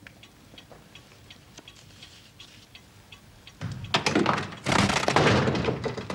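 A timepiece ticking steadily, about three ticks a second. About three and a half seconds in, a loud burst of noise lasting some two seconds covers it.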